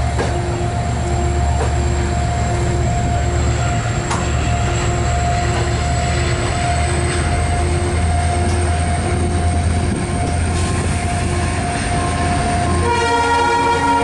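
Diesel train rolling slowly, heard from a carriage window: a low engine rumble with a steady whine and a regular pulsing tone. About a second before the end, the train's horn starts to sound.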